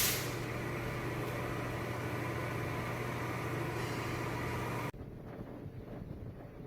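Steady low engine hum, as of a vehicle's motor running, that begins with a brief burst of noise and cuts off abruptly about five seconds in to a quieter background.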